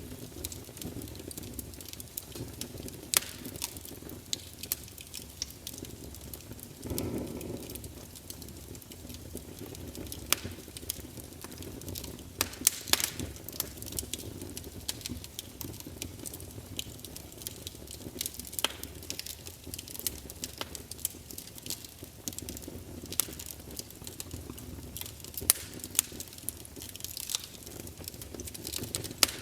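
Wood campfire burning with a steady low rush and frequent sharp crackles and pops at irregular intervals. About seven seconds in, the flames briefly surge louder.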